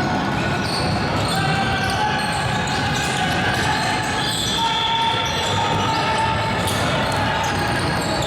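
Basketball game in a gym: a ball bouncing on the hardwood and many short, high sneaker squeaks over a steady murmur of voices in a large hall.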